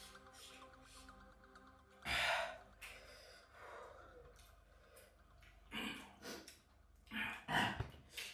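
A man sighing and breathing out heavily, several short noisy exhales, the loudest about two seconds in.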